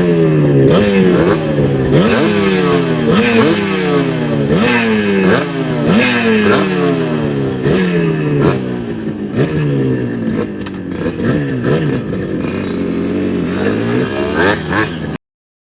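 Yamaha motorcycle engine revved over and over with quick throttle blips: each blip jumps up in pitch and then falls back, a little more than once a second. It cuts off abruptly near the end.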